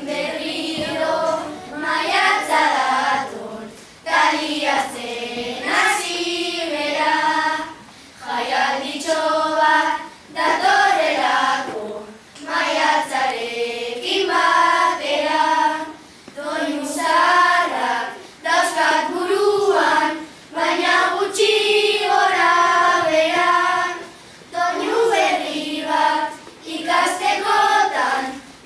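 A group of children singing together in unison, in phrases broken by short pauses about every four seconds.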